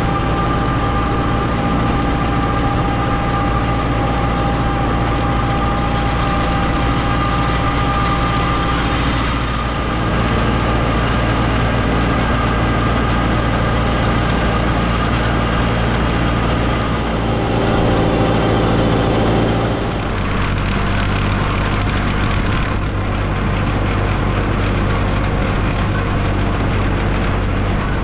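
Tractor engine running steadily. Its note shifts about ten seconds in and again around twenty seconds. Faint short high chirps can be heard over it near the end.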